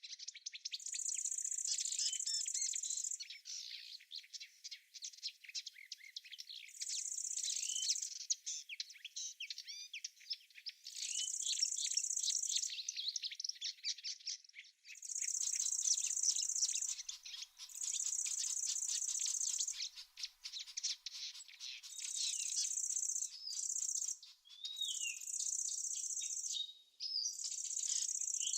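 Songbirds chirping and singing continuously, overlaid by an insect's high-pitched buzzing that comes in repeated bursts of about two seconds each.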